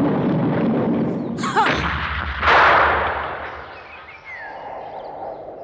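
Dramatic explosion sound effects: a continuous low rumble, a sharp whoosh about a second and a half in, then a loud blast about two and a half seconds in that dies away.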